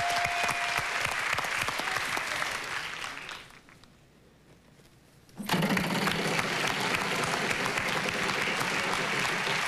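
Game-show studio audience applauding. It fades to near silence about three and a half seconds in, then comes back abruptly about two seconds later.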